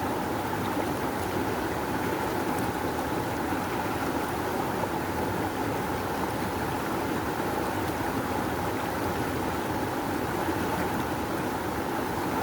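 Rushing river water, a steady full rush with no breaks.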